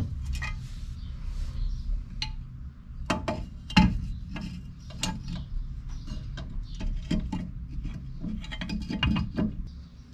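Metal clicks and clinks of drum brake hardware being fitted by hand: hold-down pins, hold-down springs and cups and a brake shoe knocking against the steel backing plate, with a louder clank just under four seconds in.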